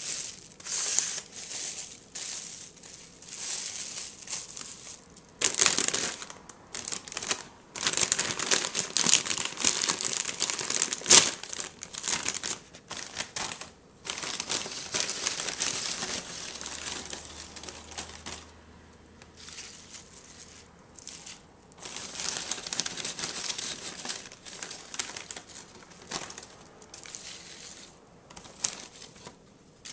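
Plastic bags crinkling and rustling in irregular bursts as ridged potato chips are packed into a clear plastic bag, with a loud crackle about eleven seconds in and a quieter stretch past the middle.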